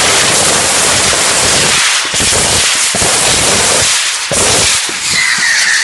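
Fireworks going off at close range: a loud, dense hissing crackle that briefly dips twice. Near the end a whistling firework starts, its high tone slowly falling in pitch.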